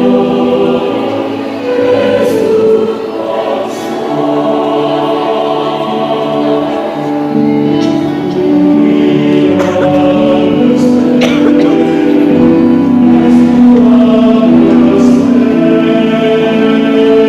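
Youth church choir singing a song in several held, harmonised parts.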